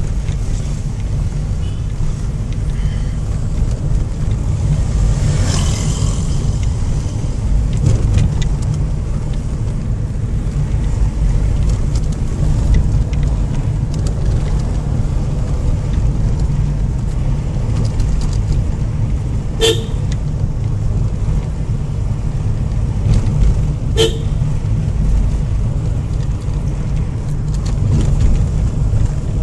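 A car's engine and road noise heard from inside the cabin while driving: a steady low rumble, with two short horn toots about four seconds apart, a little past the middle.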